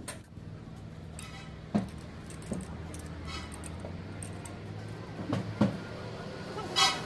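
Metal parts of a truck diesel's fuel injection pump and its drive coupling clinking and knocking as they are fitted by hand: a few sharp knocks scattered through, and a brighter metallic rattle near the end, over a steady low hum.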